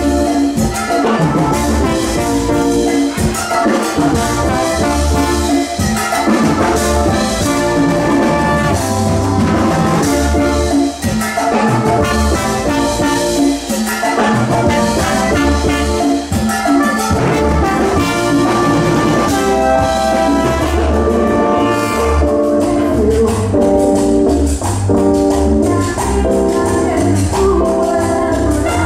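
Live band playing an instrumental stretch of a Latin dance tune over a loud PA, with drums keeping a steady bass beat.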